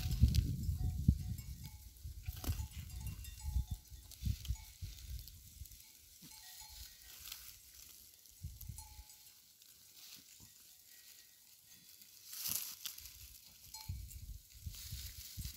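Outdoor field ambience: an irregular low rumble on the microphone, heaviest in the first few seconds and again near the end, with faint short high calls now and then and a couple of sharp clicks.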